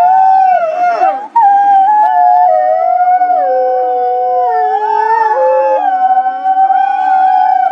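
A pack of wolves howling in chorus: several long howls at different pitches overlap, sliding up and down, with a brief break about a second in.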